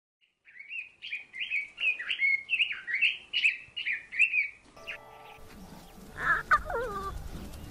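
A bird singing a run of quick, repeated chirping phrases for about four seconds. Then background music comes in, with a short falling call over it near the end.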